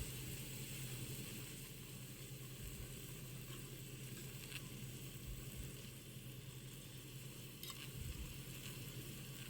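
Small puri deep-frying in hot oil in a miniature pan: a steady sizzle, with a few faint ticks.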